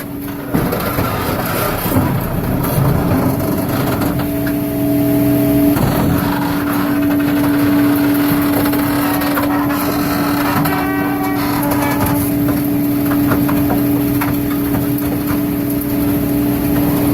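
2006 Al-jon 580 car logger/baler running, its machinery making a loud, continuous mechanical noise. A steady whine comes in about four seconds in and holds.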